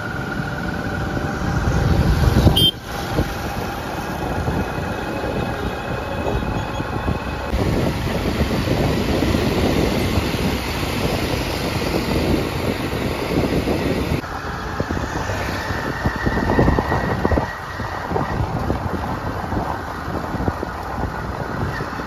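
Diesel backhoe loader driving along a tarmac road, its engine running steadily with tyre and road noise, heard from a vehicle moving alongside. The sound jumps abruptly a few times.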